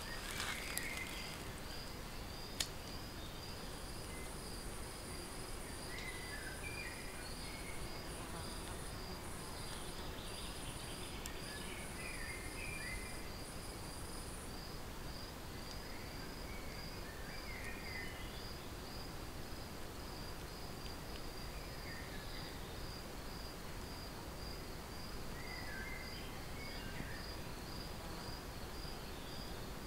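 Summer woodland insects: one chirps in a rapid, even pulse throughout, while a higher, buzzing trill starts a few seconds in and stops about halfway. A few brief chirps come now and then.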